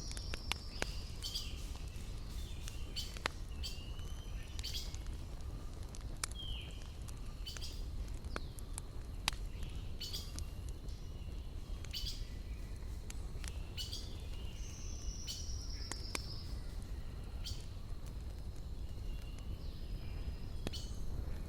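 Wood fire crackling with scattered sharp pops over a low steady rumble, while birds call: a descending trilled whistle near the middle and a few short chirps.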